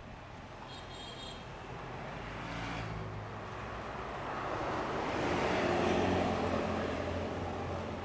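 Intercity bus passing close by: its diesel engine and tyre noise grow louder, peak about six seconds in, then ease off as it moves away.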